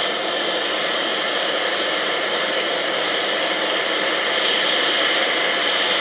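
Steady, unbroken hiss of steam escaping from an LNER V2 class steam locomotive, with no exhaust beats.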